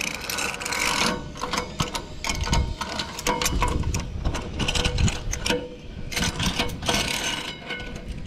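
Metal gear clicking and rattling: a dense run of irregular clicks, several a second, typical of harness and zip-line hardware being handled.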